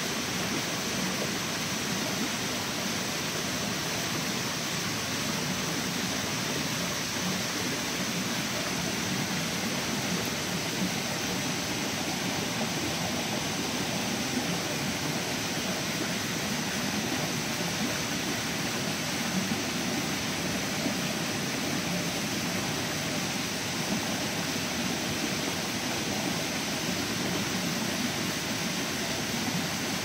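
Mountain stream rushing over rocks: a steady, even rush of water.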